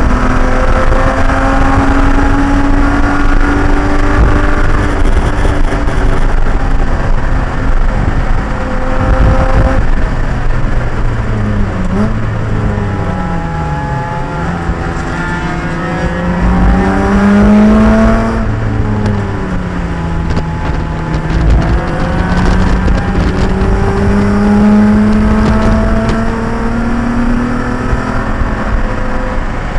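Race car engine at speed, heard onboard, its pitch repeatedly climbing under acceleration and dropping on lifts and downshifts, over heavy wind and road rumble.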